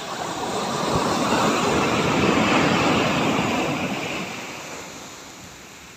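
Ocean surf: the rush of a breaking wave swells up over about two seconds, then fades away again over a steady background hiss.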